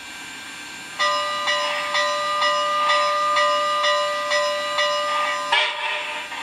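Sampled steam-locomotive whistle from the DCS sound system of an MTH HO-scale Southern Pacific Cab Forward: one steady chord held for about four and a half seconds, beginning about a second in, with a regular pulse about twice a second under it. It ends in a short burst of steam hiss.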